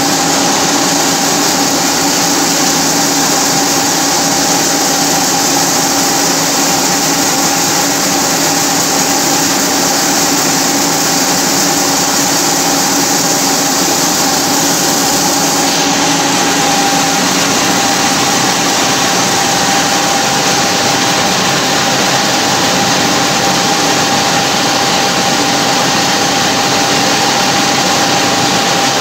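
Heavy-duty vertical turret lathe running and cutting a large metal workpiece on its rotating table, throwing off curled chips: a loud, steady machine noise with a constant whine. The higher hiss changes slightly about halfway through.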